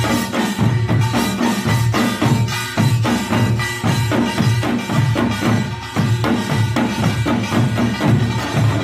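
Korean pungmul percussion ensemble playing a fast, steady beat: drums struck with metal gongs ringing over them.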